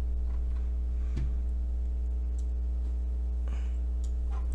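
Steady electrical mains hum with a ladder of even overtones, and a few faint clicks: one about a second in and two more near the end.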